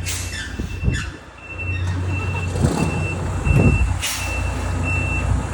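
Volvo FH trucks' diesel engines running and revving twice around the middle, over a short high beep that repeats about twice a second, with a sharp hiss of released air about four seconds in.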